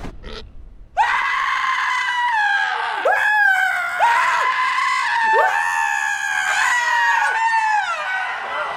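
A man and a pig character screaming at each other in a long run of loud, high-pitched screams, starting about a second in. The screams break and start again several times with a swooping rise, then fall away at the end.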